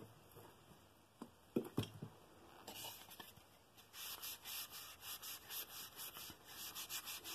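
Hand rubbing strokes over a stacked pine bowl, about three a second, with a few dull knocks as the bowl is handled in the first two seconds.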